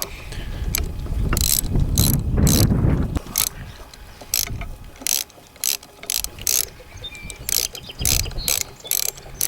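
Ratchet wrench clicking in short runs as bolts are tightened down on a hydraulic ram's bolt-on end cap, clamping in the new seals. There is a low rumble of handling in the first three seconds.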